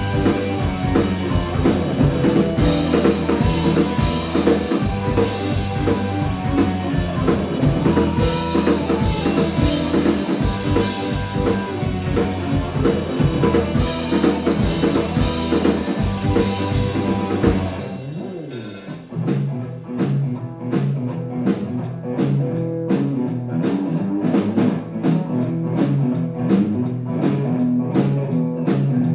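Live rock-blues band of drums, electric bass, electric guitar and keyboards playing an instrumental passage without vocals. About two-thirds of the way through, a bass note slides down and the low end drops away, leaving drums keeping time under guitar and keys.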